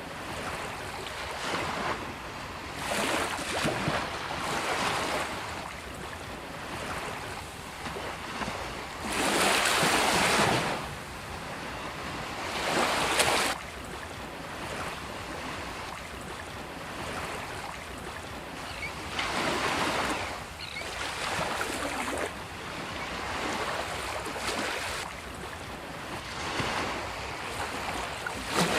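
Sea waves breaking on a beach: a continuous wash of surf with louder surges as each wave breaks every few seconds, the biggest about nine to eleven seconds in.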